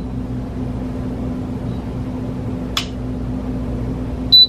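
Steady low electrical hum with one sharp click about three seconds in, then a short high electronic beep near the end from the blender's control panel being pressed.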